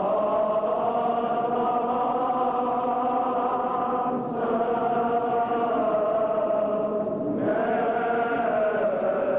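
Armenian liturgical chant: voices sing long held notes in slow phrases, breaking off briefly about four seconds in and again about seven seconds in.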